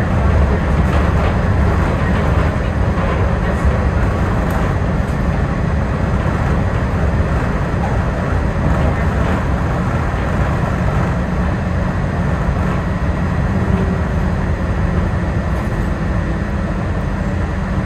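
Walt Disney World Resort monorail running along its beamway, heard from inside the car: a steady low rumble with a faint steady high whine above it.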